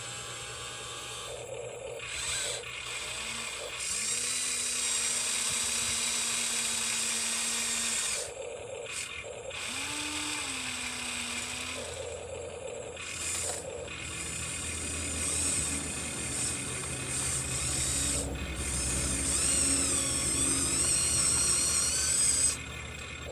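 Huina 1593 RC excavator's small electric motors and gearboxes whirring as its functions are worked. The whir starts and stops several times, with a whine that shifts in pitch.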